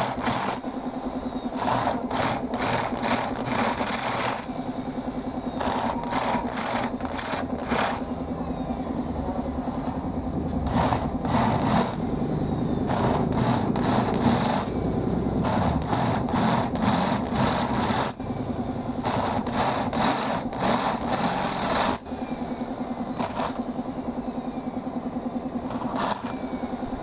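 Electric drill boring a dowel hole into an aluminium motorcycle crankcase at a stripped stud hole. The motor hums steadily, broken every few seconds by runs of harsh, rattling cutting noise as the twist bit bites into the metal.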